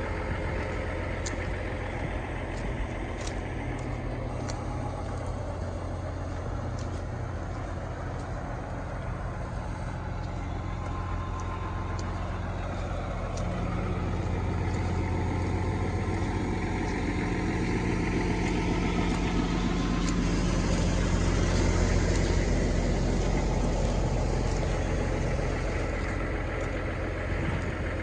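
Belarus 2011 compact utility tractor's diesel engine idling steadily, growing louder for a stretch in the middle, then easing back.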